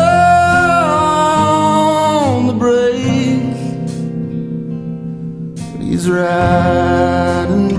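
A song with guitar accompaniment: a singer holds a long note that slides down about two seconds in, then another held note starts about six seconds in.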